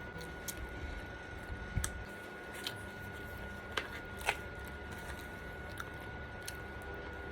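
Close-miked chewing of crispy, overcooked vegan lasagna noodle, with a few sharp crunches and mouth clicks scattered through. A faint steady high tone hums underneath.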